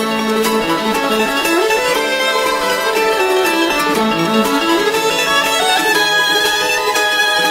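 Background music: a fiddle-led string tune with plucked accompaniment and a moving bass line.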